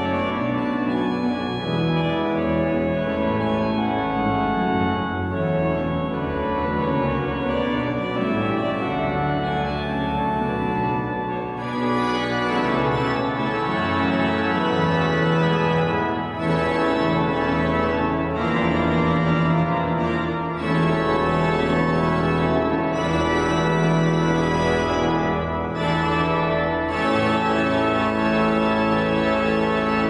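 The organ of St Martin of Tours, Roath, Cardiff, playing music in slow, sustained chords that change every few seconds.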